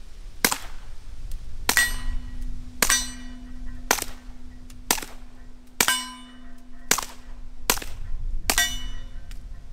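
Ruger LCP II .22 LR pistol fired through an Odin Works Nav 22 suppressor with high-velocity Remington Thunderbolt rounds: nine shots at about one a second, each a short, really quiet report followed by a brief ringing. The pistol cycles on every shot.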